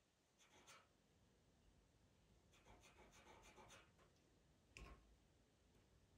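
Faint scratching of a pastel pencil drawing short strokes on Pastelmat paper, a quick run of strokes in the middle, with one light knock about five seconds in.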